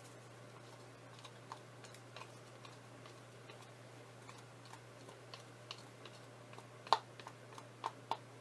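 Scattered light clicks and taps at an irregular pace, the loudest about seven seconds in, over a steady low hum.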